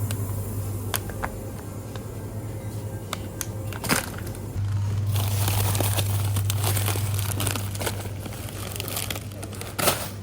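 Crinkling and rustling, as of plastic or paper being handled, with scattered clicks and two sharp knocks, about four seconds in and near the end, over a steady low hum.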